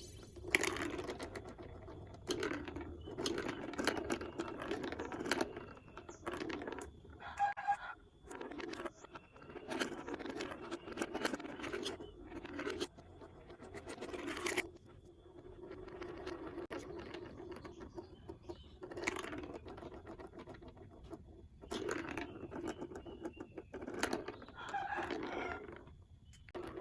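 Glass marbles rolling and rattling down plastic building-block marble-run tracks in a string of runs a second or two long, with sharp clicks as they drop and strike the pieces.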